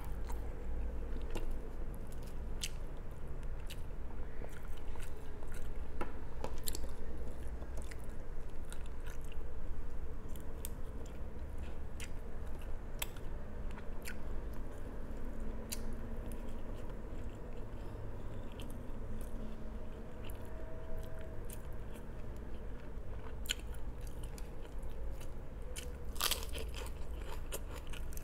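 Close-miked mouth sounds of a person eating: chewing and biting with scattered crisp crunches and wet clicks. A faint low hum runs underneath, and there is a louder cluster of crunches near the end.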